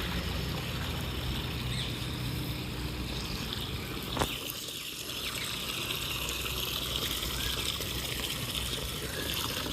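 Water trickling steadily, with one sharp click a little after four seconds.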